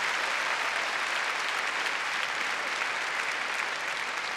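Large audience applauding steadily, a dense patter of many hands clapping that gradually dies down.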